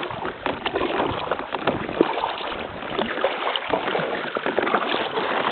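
Kayak paddling: paddle blades splashing and dripping in the river, with a dense crackle of small clicks and knocks close to the microphone.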